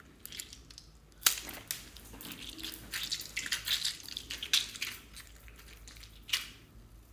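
Small squishy ball filled with gel beads being squeezed and kneaded by hand: a wet, crackling squish of bead-filled gel, starting about a second in and running in clusters, with one sharp click near the end.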